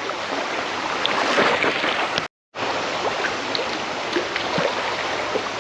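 Shallow river water rushing and splashing steadily, with small scattered splashes and a brief dead gap a little before halfway through.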